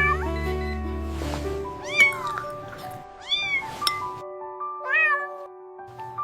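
A cat meowing about four times, roughly a second and a half apart, each meow rising and then falling in pitch, over background music.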